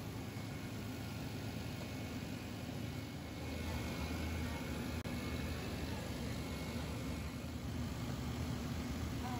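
Autonomous floor-cleaning robot running as it travels over a tiled floor, a steady low mechanical hum and whirr that gets a little louder about three and a half seconds in.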